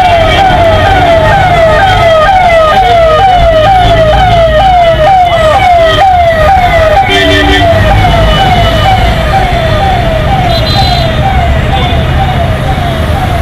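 Electronic siren on a convoy escort car, its pitch sweeping over and over a few times a second, over the low rumble of vehicle engines and road noise.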